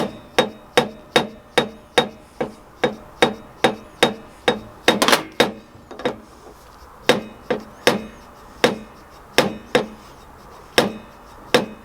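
Hammer tapping repeatedly on metal, about two to three ringing strikes a second, with a short pause about six seconds in, working a seized, corroded carburettor part free.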